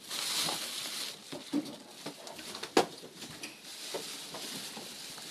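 Rustling and scattered small knocks and thumps of someone getting up and moving about close to the camera in a small room, with one sharp knock a little under three seconds in.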